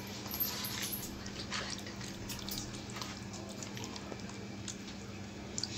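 Irregular wet squelches and smacks of a hand working chicken pieces through a thick yogurt-and-spice marinade in a plastic bowl.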